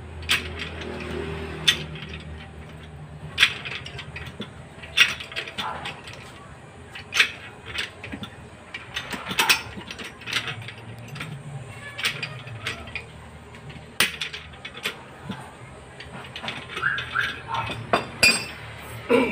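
Irregular sharp metallic clinks and knocks, roughly one every second or two, from metal tools and pipe fittings being handled during plumbing work.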